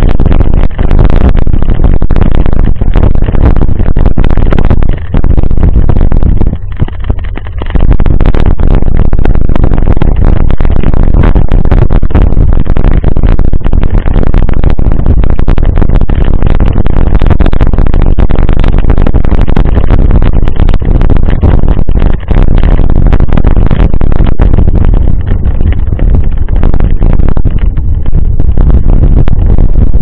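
Mountain bike ridden over a gravel dirt road, heard through a handlebar-mounted action camera: loud, distorted wind buffeting on the microphone with a constant rattle and crunch from the tyres and bike over the loose stones.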